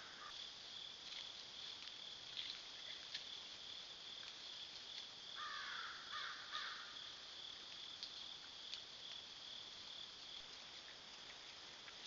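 Night insect chorus of crickets, a steady high trill heard faintly through a trail camera's microphone, with scattered faint clicks and a brief rougher, lower noise about halfway through.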